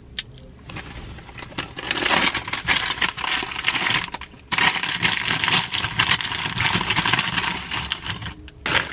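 Plastic shopping bag and crinkly tortilla-chip bag rustling and crackling as the chip bag is pulled out and handled, in two long stretches with a brief pause between them.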